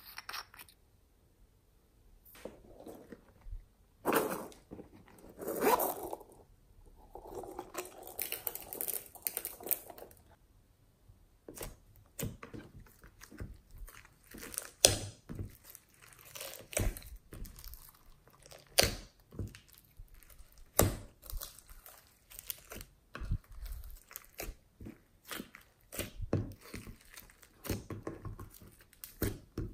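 Hands kneading and stretching sticky slime loaded with glitter and beads in a glass dish: wet, sticky clicks and crackles as it is pressed and pulled apart, irregular and close together. In the first seconds there is softer rustling.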